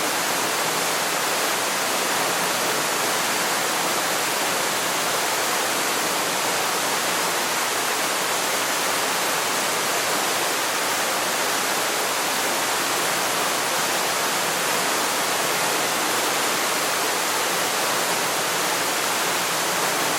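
Waterfall, a steady, even rush of falling water, mostly hiss with little deep rumble, unchanging throughout.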